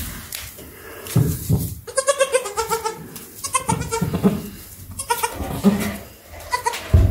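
Goats bleating: a series of high, quavering calls, about four of them, starting around two seconds in. Low thumps come a little before the calls and again near the end.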